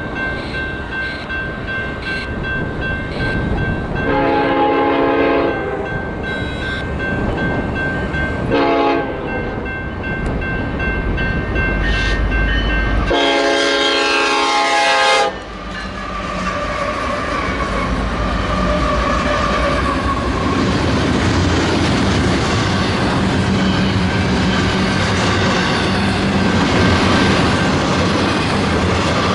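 Eastbound double-stack freight train led by an EMD SD70ACE diesel locomotive sounding its horn for a grade crossing: a long blast, a short one, then a long one. The locomotive then passes close by and the stack cars follow with a steady rumble and clickety-clack of wheels on rail joints.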